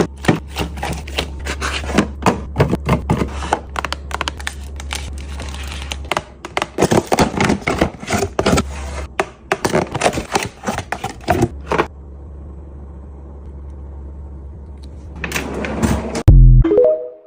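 Packaged snacks being handled and set into a fridge drawer: a quick, busy run of clicks, taps and rustles for about twelve seconds, then a quieter stretch, then one loud thump near the end.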